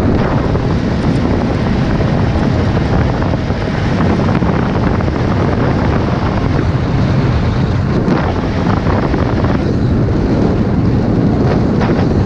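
Snowmobile travelling over snow at speed, a steady loud rush of wind buffeting the microphone with the machine's engine running underneath.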